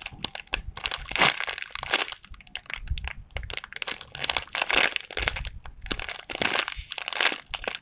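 Clear plastic packaging bag crinkling irregularly in the hands as a slow-rising squishy toy is squeezed and turned inside it.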